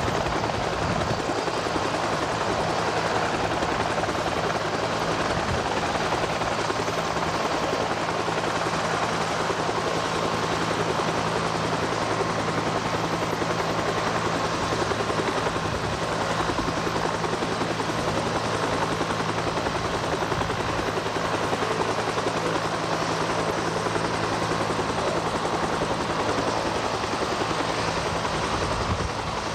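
UH-60 Black Hawk helicopters running on the ground with rotors turning: a steady turbine and rotor noise over a low hum that does not change.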